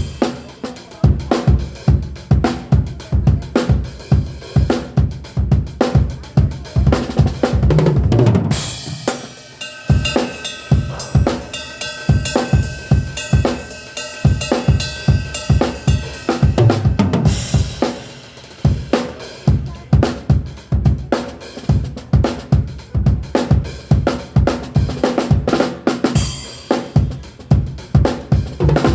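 Full acoustic drum kit played through a soundcheck: kick and snare grooving with hi-hat and cymbals. A crash cymbal hit about eight and a half seconds in gives way to lighter playing under a ringing cymbal for several seconds before the full groove returns, with another crash near the end.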